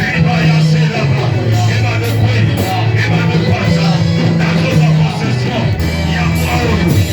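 A church worship band playing, with long held bass notes under a busy accompaniment.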